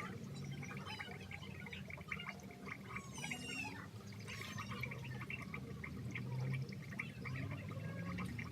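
A kitten purring steadily, a low rapid rumble, with faint high chirps mixed in.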